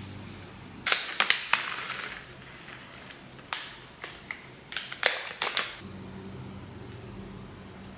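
Several short clicks and knocks of small objects being handled on a kitchen counter, in two clusters, with a low steady hum that drops away about a second in and comes back near the end.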